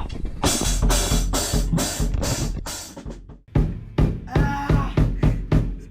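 Drum kit being played: a quick run of snare and bass drum hits, about three a second, then after a brief pause a second run of hits with some ringing.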